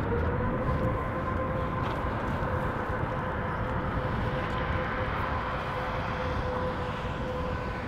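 Airbus A350-1000's twin Rolls-Royce Trent XWB turbofans running at high power for takeoff: a steady rumbling rush with a whine that holds one pitch.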